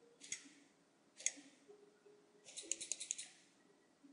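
Clicks of a computer mouse and keyboard: a single click about a third of a second in, another about a second and a quarter in, then a quick run of clicks from about two and a half seconds in.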